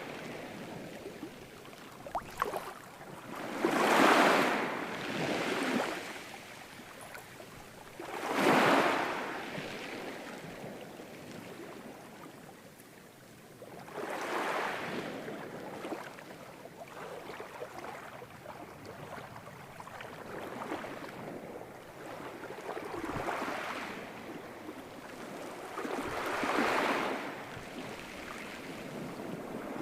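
Ocean surf: waves breaking and washing in, in surges every four to six seconds with a quieter wash between.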